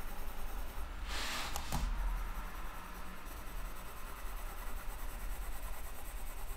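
Coloured pencil scratching softly on paper in small circular strokes, laying down light layers of colour. About a second in there is a brief, louder rustle with a couple of light clicks.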